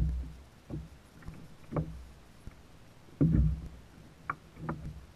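Irregular knocks and bumps on a plastic fishing kayak's hull as a caught fish is handled aboard, the loudest a heavier thud a little past three seconds in.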